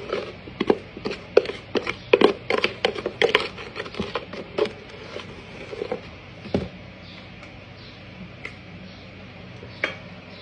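A kitchen utensil clicking and knocking against a bowl, about two or three quick, irregular strikes a second, thinning after about six seconds to a few scattered taps.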